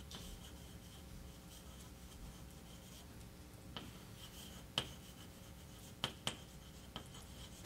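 A few faint, sharp clicks and taps over a low steady room hum, the clearest about five and six seconds in.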